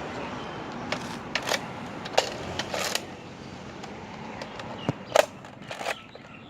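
Plastic clicks and clacks of a Nerf Sling Fire lever-action blaster being worked to clear a jam: a string of sharp, irregular knocks over a steady rustling hiss.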